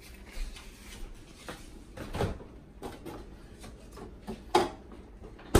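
Scattered knocks and clicks of kitchen items being put away and a side-by-side refrigerator door being opened, with two sharper knocks near the end.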